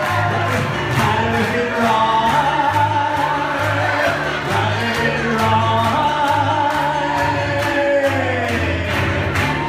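Live piano-bar song: a pianist playing a steady bass line of held low notes while a crowd of voices sings along.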